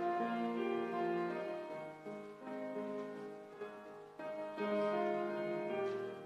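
Grand piano playing slow, sustained chords as accompaniment to a church choir's anthem, softening in the middle before swelling again.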